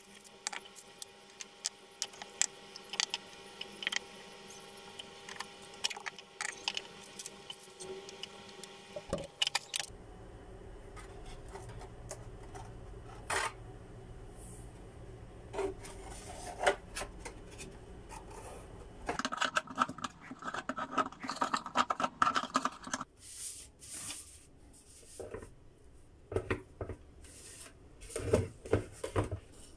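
Hard painted 3D-printed plastic armour pieces being handled, with scattered clicks, taps and rubbing as they are turned and fitted together.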